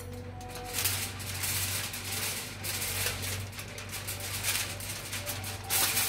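Aluminium foil crinkling in irregular crackles as it is handled around a foil-wrapped fish.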